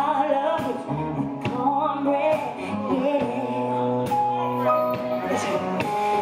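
Live band music with a woman singing: held sung notes over bass, horns and drums.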